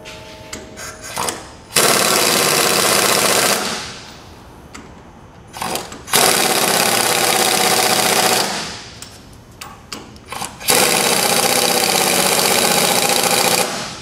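Impact wrench hammering in three bursts of two to three seconds each, tightening the bolts that hold the blades of a hydraulic shear, with small knocks of the tool being moved between bursts.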